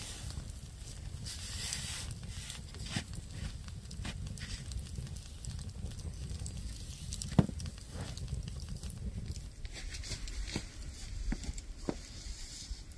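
Wood campfire burning, with scattered sharp crackles and pops and one louder pop about seven seconds in, over a low steady rumble.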